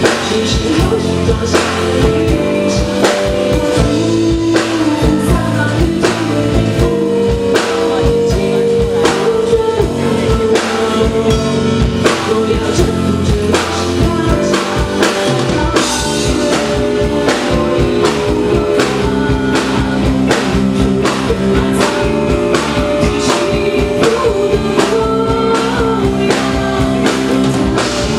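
Live rock band music: a full band with drum kit playing steadily.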